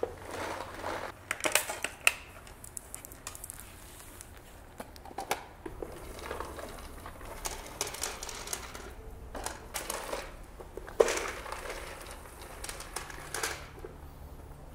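Hurricane Spin Broom, a push-powered broom with spinning brushes, sweeping dry dog kibble across a tile floor: irregular clicking and rattling as the kibble is swept up, with a few sharper knocks, the loudest about eleven seconds in.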